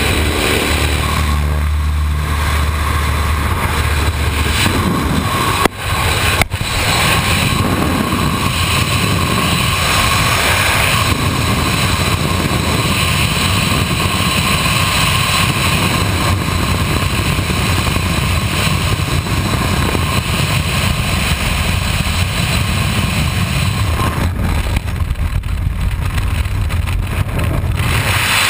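Wind rushing over a helmet camera's microphone at the open door of a high-wing single-engine jump plane, over the drone of its engine; a steady low engine hum is clearest in the first few seconds. The loud rush carries on through the exit into freefall near the end.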